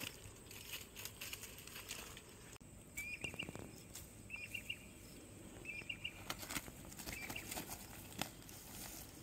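A freshly caught tilapia flapping and slapping on dry grass, with grass rustling, then rustling and handling as it is picked up and put into a mesh landing net. A bird calls four times in short groups of quick high chirps.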